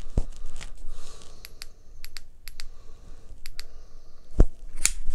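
Handling of a metal LED flashlight: a scattered series of small, sharp clicks, with one louder low thump about four and a half seconds in.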